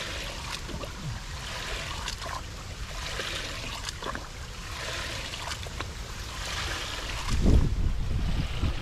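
Shallow muddy water splashing and trickling as hands work through a small rice-field pool, with scattered short splashes. Near the end comes a louder low rumble of wind or handling on the microphone.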